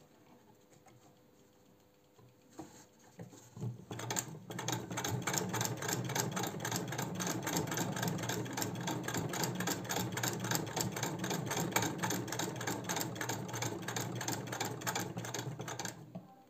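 1913 Singer 66 sewing machine, turned by hand, stitching through eight folds of heavy denim-like fabric. After a few quiet seconds it runs as a rapid, even clatter of needle strokes for about twelve seconds, then stops just before the end, having sewn the thick stack without difficulty.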